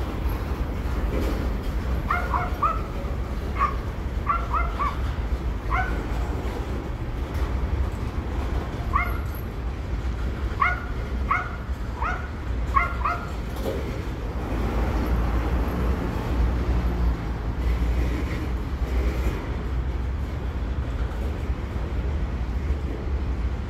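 Freight train of tank cars and covered hoppers rolling slowly past with a steady low rumble. Through the first half there is a string of short, high, rising chirps.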